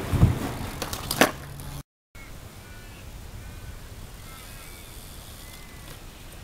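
BMX bike hitting a skate park box: a heavy thump just after the start and a couple of sharp knocks about a second later. After a brief dropout, quieter outdoor air with birds chirping faintly.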